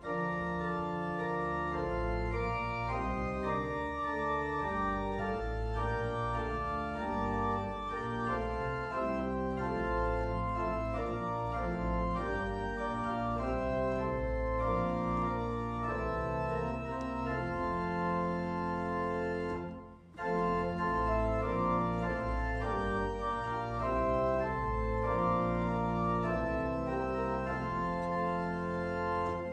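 Organ playing a hymn in held chords, with a short break about twenty seconds in between verses.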